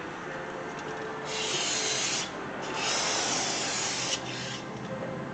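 Aerosol can of brake cleaner spraying: two long hisses of about a second and a second and a half, then a short one, each cut off abruptly.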